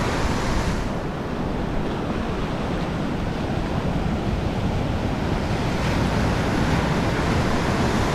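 Surf breaking and washing up and back over a sandy beach in a steady wash, with wind buffeting the microphone in low rumbles.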